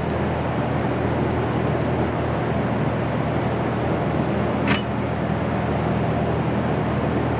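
Steady machine hum: a constant low drone under an even hiss, with one sharp click a little before five seconds in.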